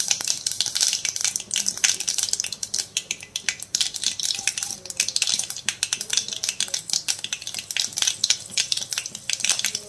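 Mustard and fenugreek seeds frying in hot sesame oil in a stainless-steel pan: a steady sizzle with dense, rapid crackling as the mustard seeds splutter.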